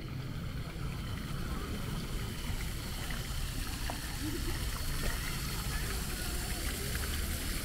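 Steady outdoor street ambience: a low rumble with a noisy hiss and faint voices in the background.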